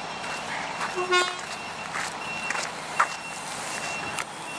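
A truck's reversing alarm beeping steadily, about one short high beep a second, over steady outdoor background noise. A brief toot sounds about a second in, and a sharp knock about three seconds in.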